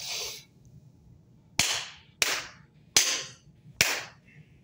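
Four sharp hand claps, a little under a second apart, each ringing briefly in the room, after a short swishing rustle at the start.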